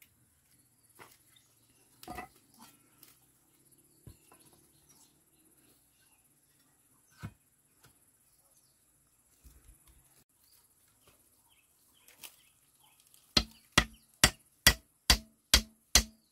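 A flat blade chopping at a wooden stick by hand: faint scattered taps and scrapes at first, then a quick run of about eight sharp chops, roughly two and a half a second, in the last few seconds.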